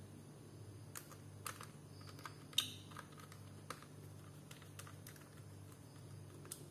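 Sparse light clicks and taps of a small screwdriver and screws as an SSD is fastened into a laptop's drive bay, one sharper click about two and a half seconds in, over a low steady hum.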